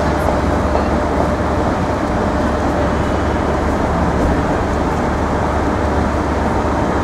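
Steady city street traffic noise: a continuous, even rumble of passing vehicles.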